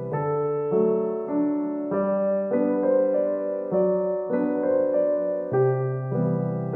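Background piano music: sustained notes and chords changing about every half second.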